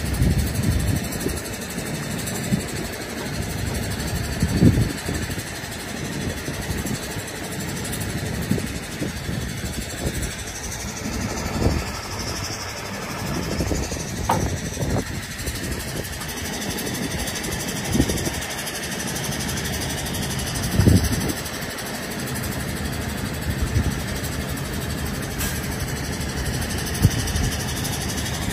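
A heavy diesel engine idling steadily, with a few louder knocks and thumps at irregular intervals.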